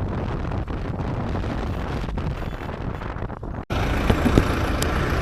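Rushing wind buffeting the microphone on a moving Honda X-Blade motorcycle, with road and engine noise beneath it. The sound drops out for an instant about three and a half seconds in, then comes back brighter and fuller with traffic noise.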